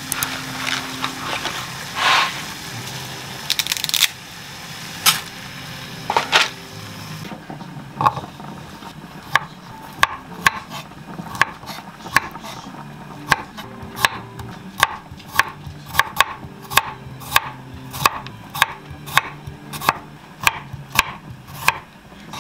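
A chef's knife slicing garlic cloves on a wooden cutting board: a steady run of sharp taps, about two a second, each stroke of the blade meeting the board. Before the slicing starts, a few irregular knocks and rattles come from a spaghetti box and a pot being handled.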